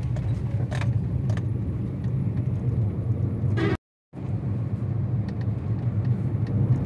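Steady low rumble of a car's engine and tyres, heard from inside the cabin while driving, with a few light clicks. The sound drops out completely for a moment just before four seconds in.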